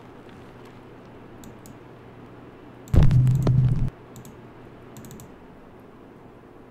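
Faint scattered clicks of a computer mouse or keyboard at a desk. About three seconds in comes a loud, low, steady-pitched sound lasting about a second.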